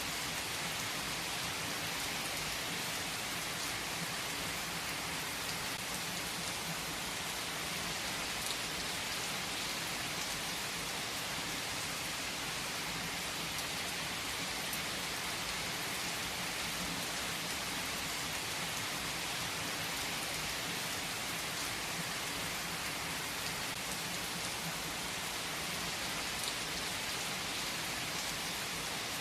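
Steady rain falling, an even hiss of drops that holds at one level throughout, with no thunder clap.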